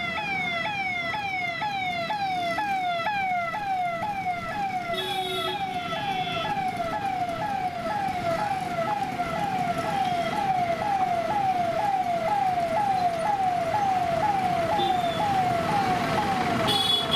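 Electronic police-vehicle siren sounding continuously in a fast repeating cycle, each cycle a quick falling sweep, about two a second. Street traffic noise runs beneath it.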